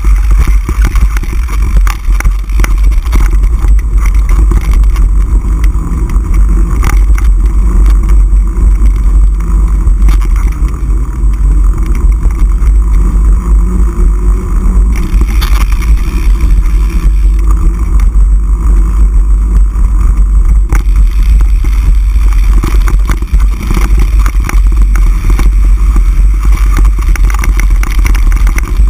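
Mountain bike ride on a dirt trail: heavy wind rumble on the camera's microphone, with tyre noise and frequent clattering rattles from the bike over the bumps.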